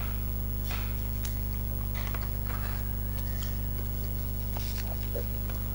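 Soft background music with long held notes over a steady low hum, with a few faint clicks.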